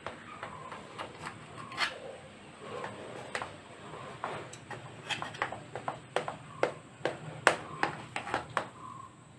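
Knife cutting through a soft baked chocolate cake in an aluminium cake tin, with irregular sharp clicks and taps as the blade meets the tin and soft rubbing as it drags through the sponge.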